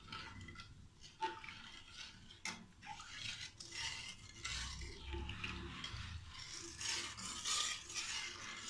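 A metal ladle stirring thin besan kadhi batter in a metal kadai, rubbing and scraping unevenly against the pan with small clicks. The batter is stirred constantly so it does not form lumps.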